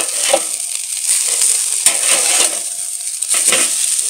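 Beef burger patties sizzling steadily on the grate of a charcoal kettle grill while they are flipped, a metal spatula scraping and clicking against the grate a few times.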